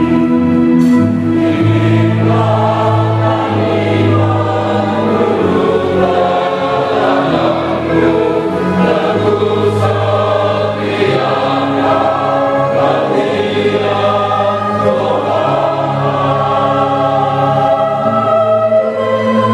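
Mixed church choir of men's and women's voices singing a hymn together, with long held notes.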